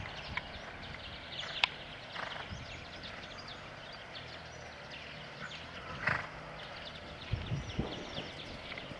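Ridden horse trotting and cantering on a sand arena, its hoofbeats soft and muffled by the sand. A sharp click stands out about one and a half seconds in.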